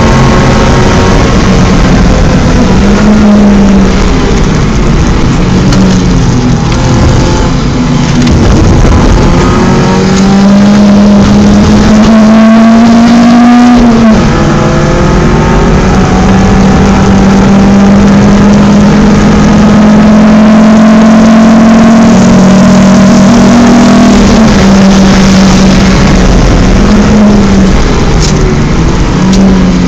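BMW 318is four-cylinder engine under hard acceleration on track, its pitch climbing through the revs, dropping sharply at a gear change about halfway through, then held high, with brief dips near the end.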